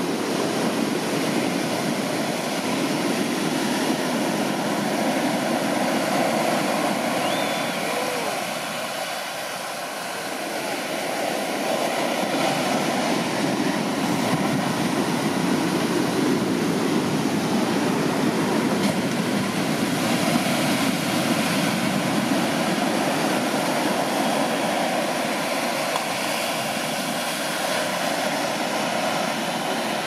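Large ocean waves breaking and washing onto the shore: a continuous rush of noise that eases briefly about ten seconds in, then builds again.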